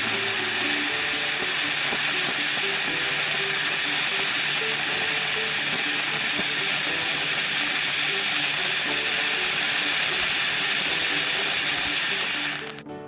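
Handheld Angel Stick firework burning with a steady, loud hiss that cuts off suddenly near the end, with background music underneath.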